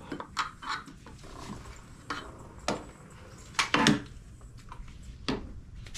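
Scattered metallic clinks and knocks of hand tools and hardware being handled, irregular and a second or so apart, with the loudest cluster a little past the middle.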